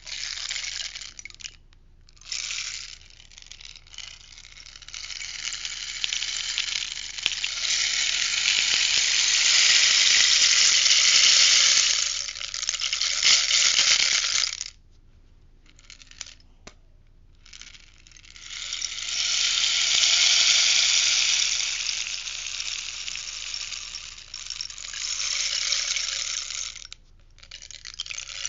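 Rainstick being tipped and turned, its beads trickling down inside in long hissing, pattering cascades that swell and fade. It falls quiet briefly about halfway through and again near the end before the next pour.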